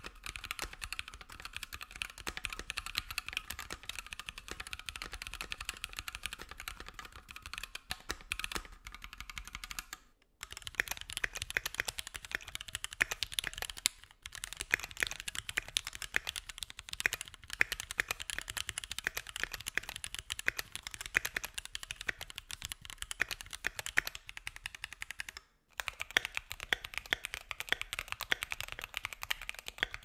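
Steady, fast typing on aluminium-cased mechanical keyboards, in back-to-back sound-test clips with short silent cuts about 10, 14 and 25 seconds in. The boards are a Keychron Q1 with Lavender switches and NicePBT keycaps, a stock Keychron Q2 with Gateron G Pro Brown switches, and a Keychron Q2 with Gateron G Pro Red switches, Durock stabilizers, MT3 keycaps and a tape mod.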